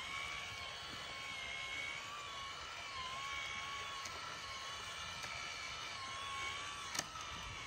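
Small remote-controlled mini tractor's motor and gears whining steadily as it pulls a loaded trolley, the pitch wavering slightly. One sharp click near the end.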